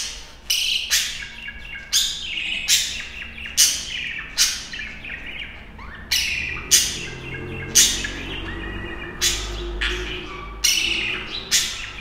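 A courting pair of budgerigars chirping and warbling: sharp chirps roughly once a second over a soft, chattering warble.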